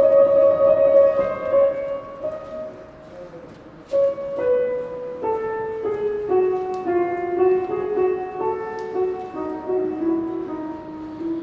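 Slow instrumental music of held melodic notes, falling quieter a couple of seconds in and coming back in sharply about four seconds in.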